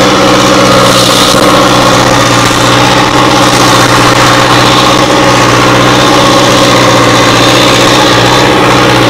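Hindustan 60 tractor's diesel engine running loud and steady at an even speed.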